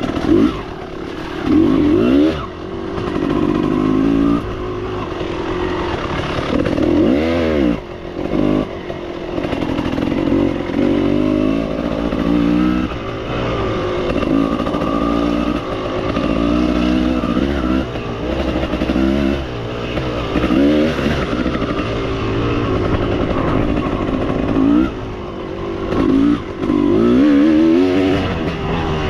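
Motorcycle engine being ridden hard, its pitch repeatedly climbing under throttle and falling off as the rider shifts and backs off.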